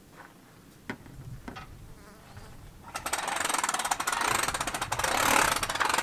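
Motorhome's electric awning motor running as the awning moves, a dense, rapidly pulsing buzz that starts about three seconds in, after a couple of light clicks.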